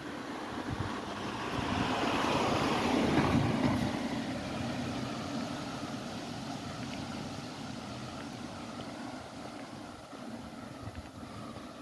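A motor vehicle driving past on the road, swelling to its loudest about three seconds in and then slowly fading away.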